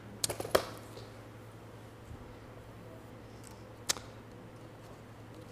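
A tablet or binder set down on a small wooden table: a quick cluster of sharp knocks about half a second in, then a single sharp click near four seconds, over a steady low hum.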